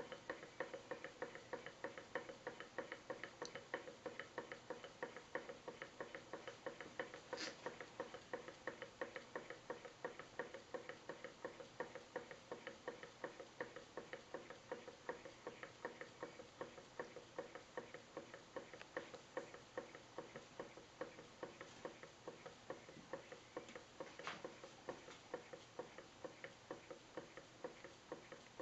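Small model hot air engine running, its mechanism making a steady, rapid, even ticking knock. A sharper click stands out once about seven seconds in and again near the end.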